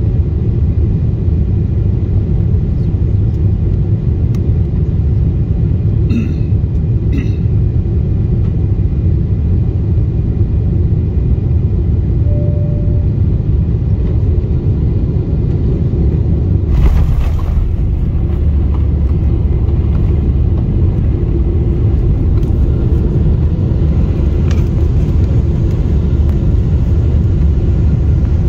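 Cabin rumble of a Boeing 747-8i on short final, heard from a window seat over the wing, then a firm touchdown about two-thirds of the way through, heard as a sudden thump. After it the low rumble grows stronger as the airliner rolls out with its spoilers deployed.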